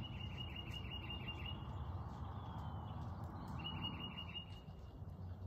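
A songbird sings two phrases of quick repeated whistled notes, about five notes a second, each note dropping slightly in pitch. There is a pause of about two seconds between the phrases, over a low steady background rumble.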